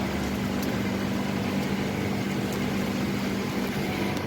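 Heavy rain falling, with a steady machine hum underneath, and a few faint ticks from drops.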